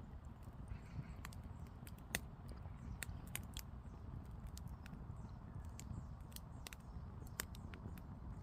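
Burning firewood crackling, with irregular sharp pops over a low steady rumble.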